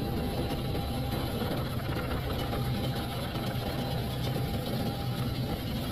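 Boeing Vertol 107 tandem-rotor helicopter hovering low just before touchdown: a steady low drone of rotors and engines.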